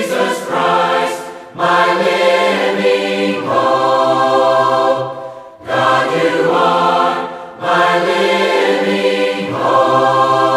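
Large mixed choir of men's and women's voices singing a cappella, in long sung phrases with short breaks between them about one and a half, five and a half and seven and a half seconds in.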